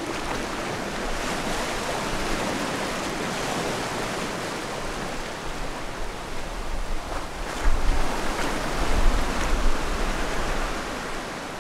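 Ocean surf breaking and washing up the shore: a steady rushing wash with a low rumble, surging louder a few times in the later seconds.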